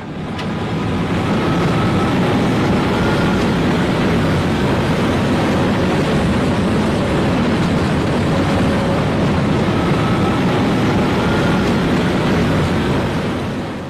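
Heavy vehicle running: a loud, steady engine noise with a faint whine that comes and goes.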